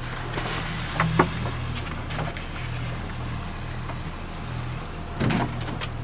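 Small boat's outboard motor idling with a steady low hum. Over it come a few sharp knocks about a second in and a cluster of clatters near the end as rope and pot gear are handled and a pot goes over the side.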